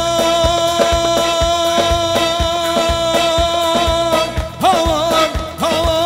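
Live Middle Eastern dance music from a band: a synthesizer keyboard's held tone over a steady drum beat, with a wavering melody line coming in about four and a half seconds in.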